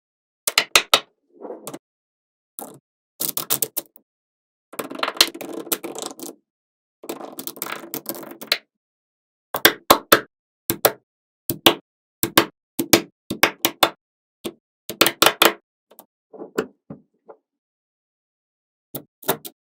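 Small magnetic balls clicking as they snap onto one another, in quick clusters of sharp clicks. Two longer stretches of rattling, about five and seven seconds in, sound like a handful of balls shifting against each other.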